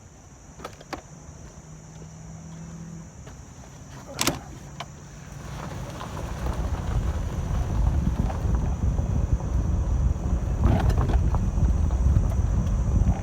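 Golf cart setting off and driving, with a few sharp clicks early and a loud sharp click about four seconds in. From about five seconds in a low rumble of travel and wind on the microphone builds and stays loud.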